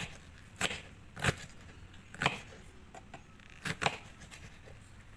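Kitchen knife chopping cabbage on a cutting board: about half a dozen unevenly spaced chops, two of them in quick succession.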